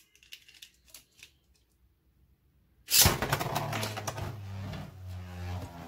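A few small plastic clicks as a Beyblade Burst top is fitted into a string launcher, then about three seconds in the launcher's string is ripped and the top drops into the plastic stadium. It goes on spinning there with a steady whirring scrape and a low hum.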